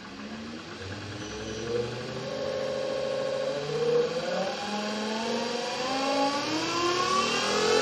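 Watersnake T18 12-volt electric trolling motor spinning its propeller in open air through a PWM speed controller. Its whine rises steadily in pitch and grows louder as the controller dial is turned up toward full speed.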